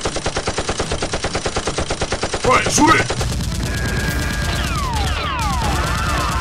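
Rapid automatic machine-gun fire sound effect, about a dozen shots a second, dubbed over Nerf blasters. About two and a half seconds in there is a short yell, and the fire turns into a denser, continuous barrage with falling whistling tones.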